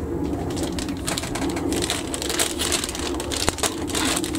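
Clear plastic kit bag crinkling and crackling in irregular rustles as it is handled with the plastic model sprues inside.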